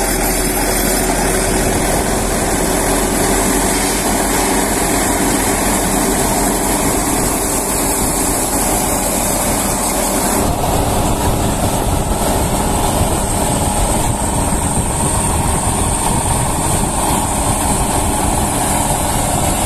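Sonalika Tiger DI 55 tractor's diesel engine running steadily while driving a Diamond straw reaper, whose rotating reel, belts and blower add a continuous machine clatter as it turns wheat stubble into chaff. About ten seconds in the mix shifts to a heavier low rumble.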